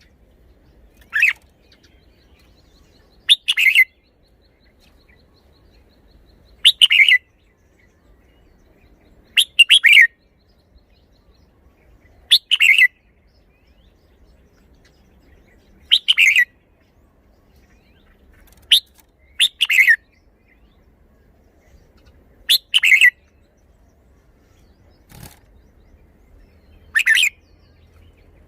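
Red-whiskered bulbul singing short, loud song phrases, about ten in all, one every two to four seconds with quiet in between.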